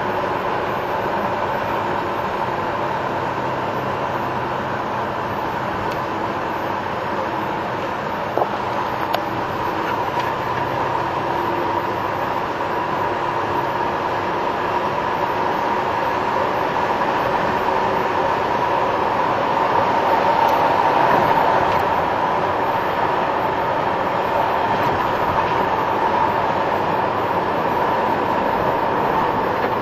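Steady truck engine and tyre noise on a wet road, heard from inside the cab, with a constant faint tone running through it. Two brief clicks come about eight and nine seconds in.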